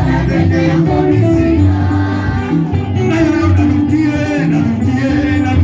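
Gospel song: singing voices over a bass line and a steady beat.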